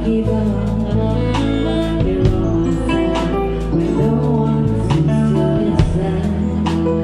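Live band music with guitar and a steady bass line, played loud and steady with regular drum hits.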